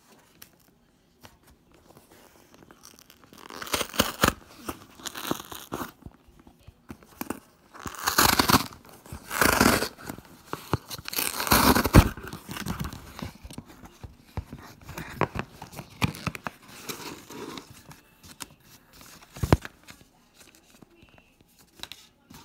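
Cardboard shipping box being torn open along its pull-tab strip: a run of tearing and rustling bursts, loudest in the middle, with a sharp click partway through.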